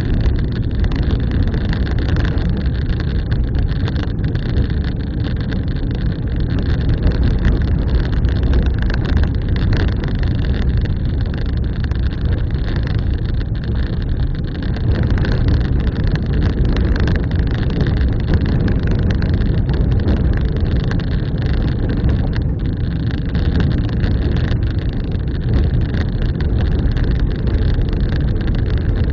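A vehicle driving along: a steady rumble of engine and road noise with no changes.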